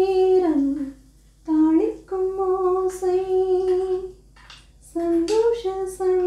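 A woman humming a tune in long held notes, in phrases broken by short pauses; the first phrase ends on a falling note about a second in.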